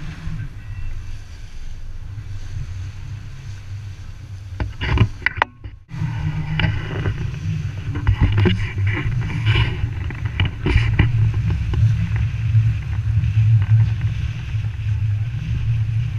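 Strong wind buffeting the camera's microphone in a gusting low rumble, over the rush and splash of the bow wave along a heeled sailboat's hull. The sound cuts out for a moment about five and a half seconds in.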